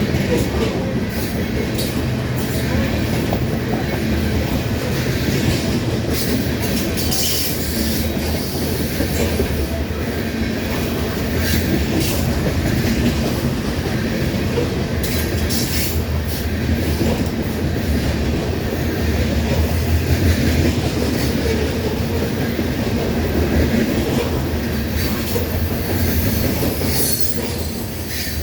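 Mixed manifest freight train rolling past: a steady rumble of the cars' steel wheels on the rails, with brief high-pitched wheel squeals several times.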